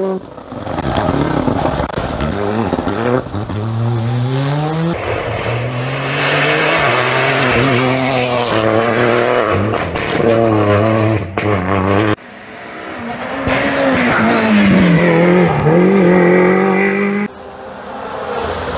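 Rally cars at full throttle on a tarmac stage, engines revving hard and climbing through the gears with a break at each shift, as one car after another approaches and passes. The sound changes abruptly about 5, 12 and 17 seconds in, where one car's run gives way to another's.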